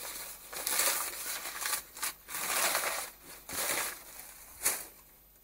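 Plastic film and paper wrapping crinkling and tearing as it is pulled off by hand, in irregular bursts that die down near the end.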